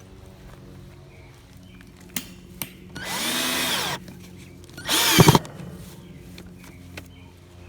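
Power drill running in two short bursts, after a couple of sharp clicks: the first, about a second long, speeds up and slows down; the second, about half a second, is louder.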